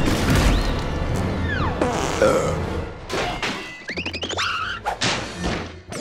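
Cartoon soundtrack: music under a quick run of crashes and thuds, with a falling whistle-like glide about two seconds in and fast warbling squiggles around four seconds.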